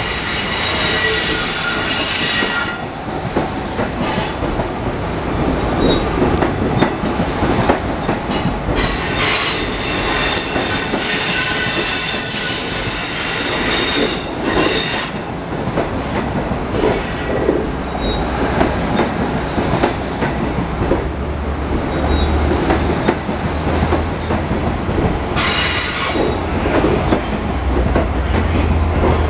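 Bilevel Kawasaki C3 passenger coaches of a departing train rolling past with a steady rumble. The wheels squeal high-pitched in several stretches: near the start, in the middle and again near the end. A low drone grows stronger in the last few seconds.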